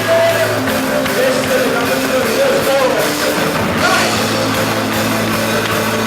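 Live rock band playing loud distorted guitars, bass and drums, with a sung melody over it.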